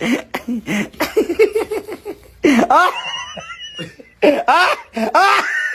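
A person's loud, repeated sneezing fits mixed with laughter: a quick run of short bursts, then drawn-out rising-and-falling cries about two and a half seconds in and again near the end.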